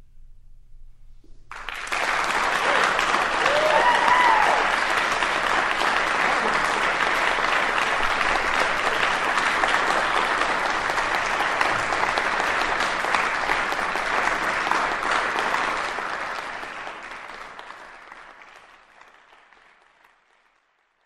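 Crowd applauding, with a few cheers about three seconds in; the clapping starts about two seconds in, holds steady, and fades out over the last few seconds.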